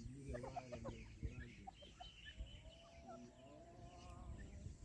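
Grey francolin hen giving faint, low clucking calls among her chicks, with a few thin high peeps. A longer drawn-out call comes in the second half.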